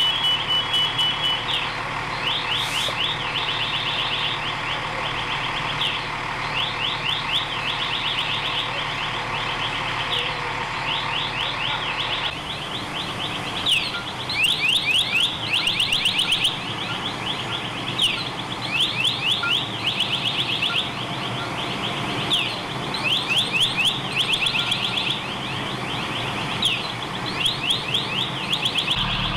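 Electronic alarm chirping in quick clusters of high, falling tones, repeating throughout, over a steady low engine hum.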